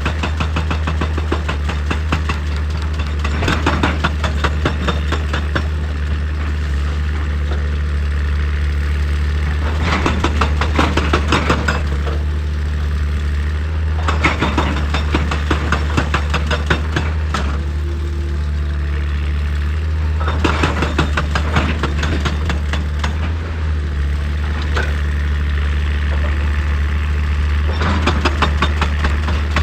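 Diesel excavator engine running steadily, with a burst of crunching, rattling rock work about every six or seven seconds as the machine breaks into rock.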